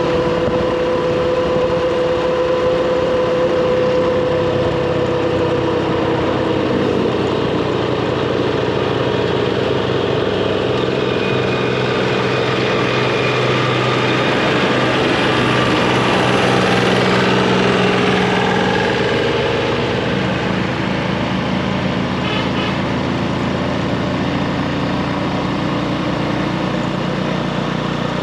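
Motorbike engine running under way. Its pitch slides down over the first few seconds and shifts several more times, over a steady rushing noise.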